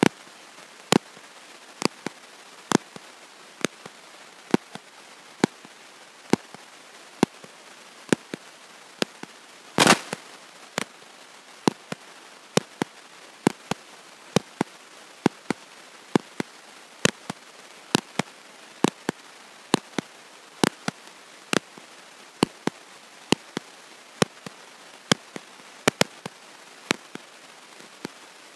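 Steady hiss broken by sharp clicks a little less than once a second, with fainter clicks between them and a longer crackle about ten seconds in; no speech comes through. The signature of a faulty audio recording.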